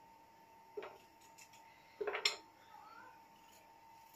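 A knife cutting through a raw potato and the slices dropping onto a metal baking tray with light clacks, once a little under a second in and a louder cluster about two seconds in.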